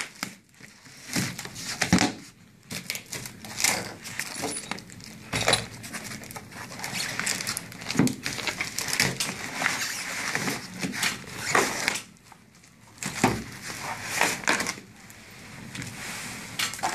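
Handling of a cardboard shipping box and its foam-wrapped contents: irregular rustling, scraping and crackling of cardboard and packing foam as parts are pulled out, with occasional knocks, and brief lulls about two seconds in and around twelve seconds in.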